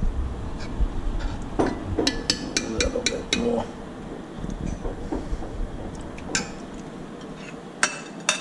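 Utensils clinking against bowls and dishes as food is served: a quick run of about six sharp clinks around two to three seconds in, then a few scattered ones near the end.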